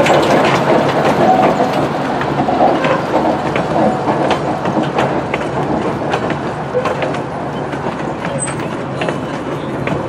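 Passenger cars and caboose of an East Broad Top narrow-gauge train rolling slowly past, their steel wheels clicking and clunking over the rail joints. The sound eases off gradually as the train moves away.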